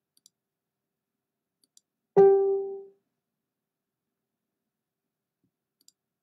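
A single electronic notification chime about two seconds in: one bright, plucked-sounding note that starts suddenly and dies away within a second. A few faint clicks before and after it.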